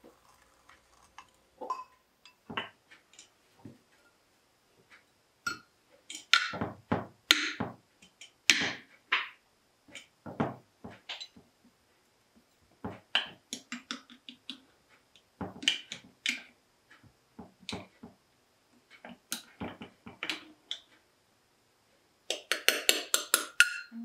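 A spoon and measuring cup clinking and knocking against glass bowls and a glass flour jar while yeast is stirred and flour is scooped. The knocks come irregularly, with a fast run of clinks near the end.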